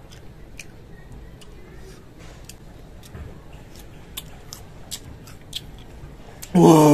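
Chewing of crisp raw green mango: faint, irregular crunches, about one or two a second. Near the end a man's loud, drawn-out voiced sound comes in.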